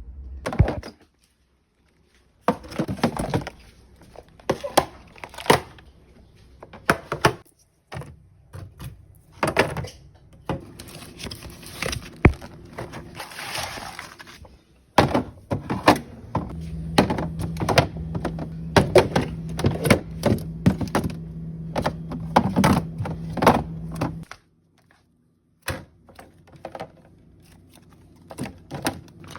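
Clatter of food containers, jars and fridge shelves being handled: many short knocks and clinks, broken by a few sudden cuts to silence. A steady low hum runs under the second half.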